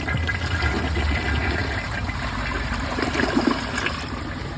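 2018 Mansfield Summit dual flush toilet flushing: water rushing and draining through the bowl, loudest in the first second or so.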